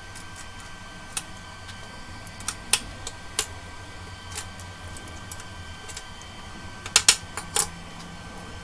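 Scattered sharp metal taps and clinks, about ten of them at irregular intervals, with a quick cluster near the end, over a steady hum.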